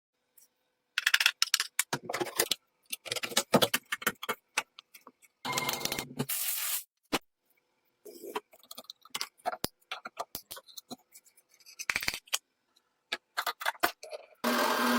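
Metal parts of an old drill being handled and worked on: irregular clinks and taps with short scraping passes, two of them longer, about six seconds in and near the end.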